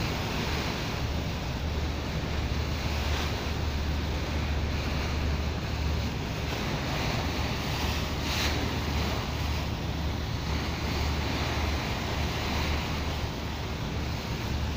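Wind buffeting the microphone and water rushing past a moving boat, over the steady low drone of its engine.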